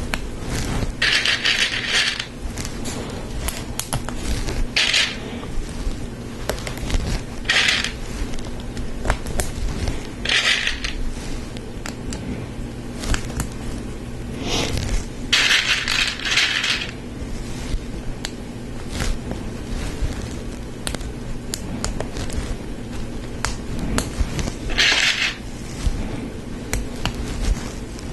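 Small plastic Lego Technic parts clicking and clattering as they are handled, with several bursts of rattling, the longest about a second long, as loose pieces are sifted through.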